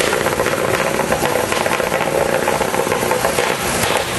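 A tuned drag-racing truck diesel engine in a Jeep, running loud and steady through its vertical exhaust stacks with a fast, even rattle of firing pulses.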